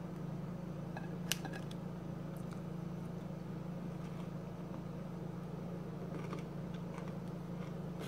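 Steady low background hum, with a few faint clicks about a second in and again near the end.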